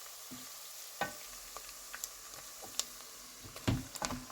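Ground meat and onions frying in oil in a saucepan, a steady sizzle, with several sharp knocks and clicks against the pan, the loudest a little before the end.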